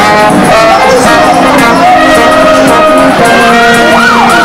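Marching brass band playing: trombone, euphonium and cornets over a drum. Near the end a wailing tone slides up and down over the band.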